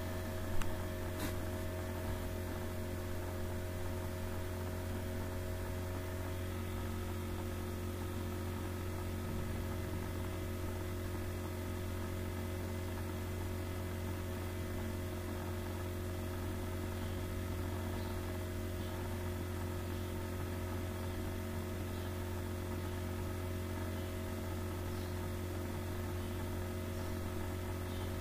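Steady low electrical hum with several faint steady tones above it, like mains hum on a microphone. A brief click comes in the first second or so.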